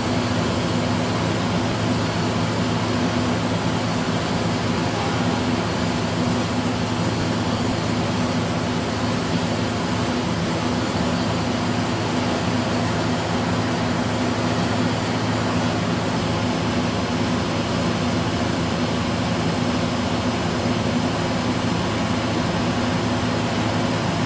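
Kitamura CNC horizontal machining centre running steadily: a constant machine hum with steady low tones under an even hiss.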